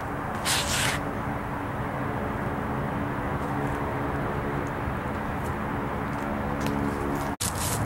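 A steady low hum with a brief rustling hiss about half a second in.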